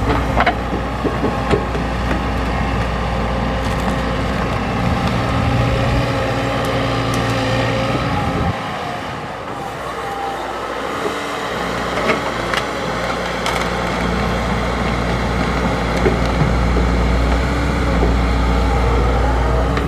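XCMG XE75G excavator's diesel engine running steadily while digging, with a few sharp knocks. The low engine note drops away for about two seconds a little before the middle, then comes back.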